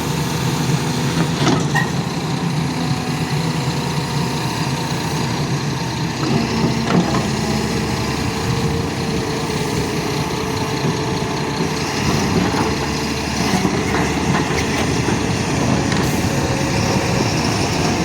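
Excavator's heavy diesel engine running steadily, with a few light knocks and clanks here and there as it is unloaded from a trailer.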